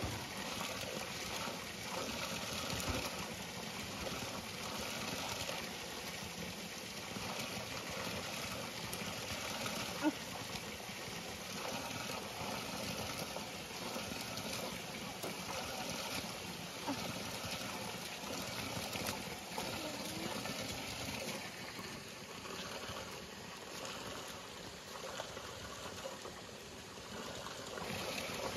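Water pouring steadily from a stone spout and splashing onto the rocks below. A single sharp knock about a third of the way through.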